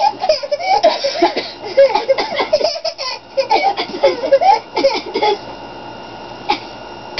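Hysterical, high-pitched laughter from a girl in rapid breathless bursts, dying away a little over five seconds in.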